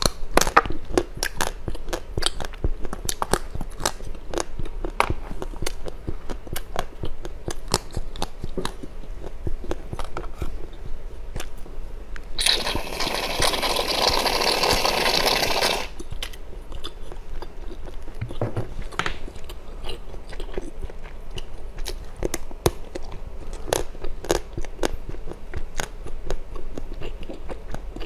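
Close-up crunching and chewing of hard candy, many sharp bites and crunches in quick succession. About halfway through, a whipped-cream aerosol can hisses steadily for about three seconds as cream is sprayed out.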